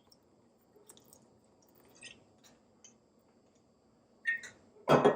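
Kitchen utensils handled while vanilla is measured into the batter: a few faint small clicks, then two sharper knocks near the end, the second the loudest.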